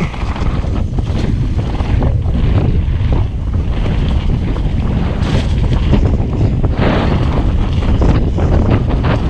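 Mountain bike descending a wet, rocky trail, heard as heavy wind buffeting the camera microphone over a constant tyre rumble, with scattered short clatters as the bike hits stones.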